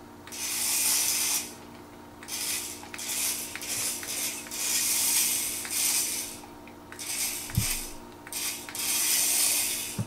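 Nano Racer RC car's tiny electric motor and gears whirring in repeated short bursts as it starts and stops across a hard laminate floor. A single dull thump comes about three-quarters of the way through.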